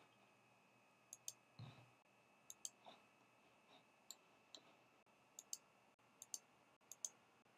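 Faint clicking from a computer keyboard and mouse: about six quick pairs of sharp clicks, each a press and release, as video frames are stepped through in the editor.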